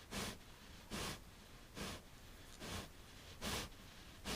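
Farrowing sow breathing heavily in labour, a noisy breath a little under once a second.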